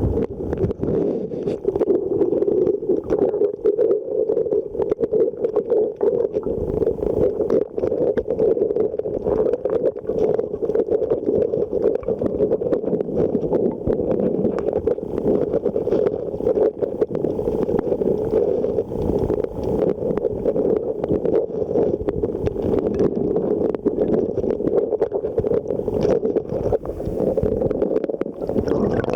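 Muffled rush of river water heard through a waterproof camera held underwater: a steady, dull wash with many small crackling clicks.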